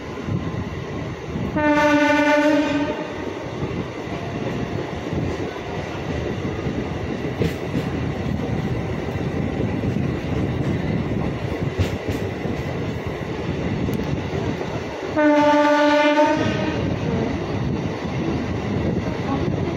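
Train horn blown twice, each a steady single note of a little over a second, the blasts about thirteen seconds apart, over the continuous rumble of a MEMU electric train running on the track.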